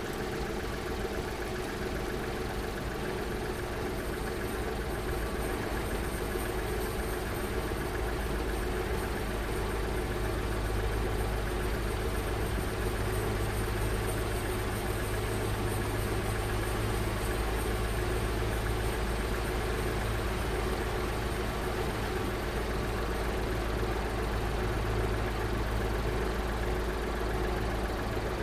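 A small kei car's engine idling steadily, with a low hum that grows a little stronger about a third of the way through.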